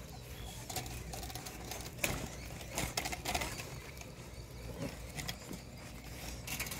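Chain-link fence rattling and clinking in irregular bursts as a litter of American Staffordshire Terrier puppies jumps and paws at the wire, with a few faint short whines in the middle.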